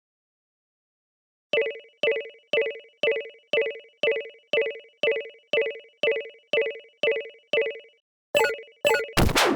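Japanese railroad crossing warning bell, the 'kan-kan' ding, starting about a second and a half in and repeating about twice a second, each ding fading quickly. Near the end the dings come faster and overlap, with sharp knocks mixed in.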